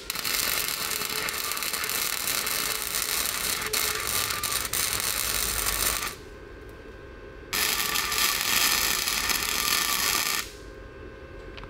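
Wire-feed welder arc crackling and hissing while tacking a swing arm onto a go-kart's steel tube frame. One run of about six seconds, a short pause, then a second run of about three seconds.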